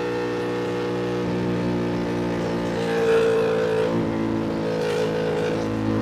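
Ducati Panigale V2 V-twin engine running under way at fairly steady revs, with a brief dip about four seconds in.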